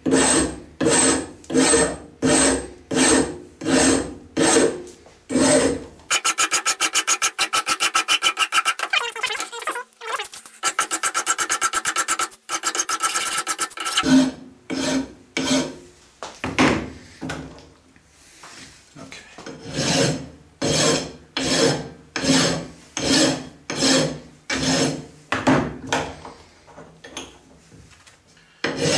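A large hand file rasping in long strokes, about one a second, across a metal part clamped in a bench vise, hogging off excess soldered-on material. For several seconds in the middle the regular strokes give way to a rapid, even chattering with a ringing tone, and near the end the strokes grow fainter.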